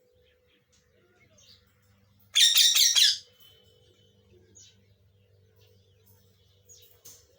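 Pet lovebird giving one loud, harsh squawk of rapid pulses lasting under a second, about two and a half seconds in, with a few faint short chirps before and after.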